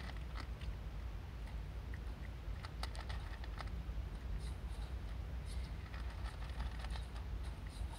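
A cat crunching dry kibble: irregular small crisp clicks of chewing, in clusters, over a steady low rumble.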